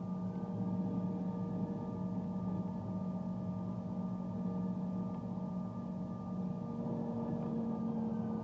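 Regional jet's turbofan engines heard from inside the cabin while taxiing: a steady hum with several steady whining tones over it and a faint higher whine that slowly rises and falls.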